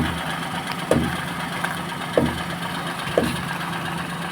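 Maruti Suzuki Alto 800's three-cylinder engine idling while the steering is turned, with four short creaking clicks about a second apart from the front left strut. The worn, dry shock top mount lets the coil spring jerk round instead of turning smoothly.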